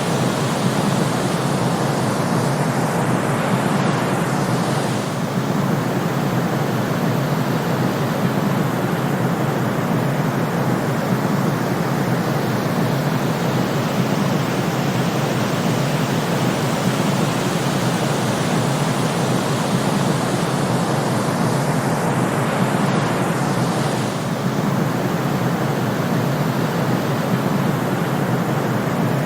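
Steady white-noise hiss, even and unchanging, with a slight brief dip in loudness twice, about 19 seconds apart.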